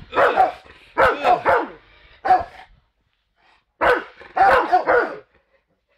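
Rottweilers barking angrily at a raised aluminum baseball bat, in quick runs of several barks each, with a pause of about a second in the middle.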